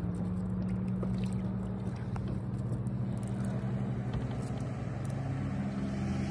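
A boat motor running at a steady speed, an even low hum.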